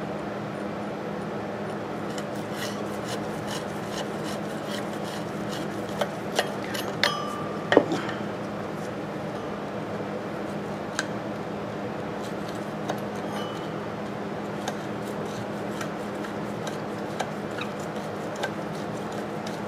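A screwdriver scraping and clicking against the rusty steel rope-start cup on an antique Briggs & Stratton 5S engine's flywheel as it is worked loose. A few sharper metal knocks with a short ring come about six to eight seconds in, over a steady low hum.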